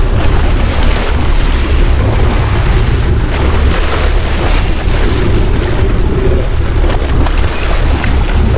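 Steady wind buffeting the microphone aboard an offshore boat, over the wash of the open sea.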